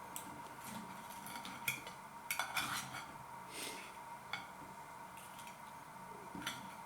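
Knife and fork clinking and scraping on a plate while cutting a piece of fried bacon: a scatter of light clinks, a few close together about two and a half seconds in.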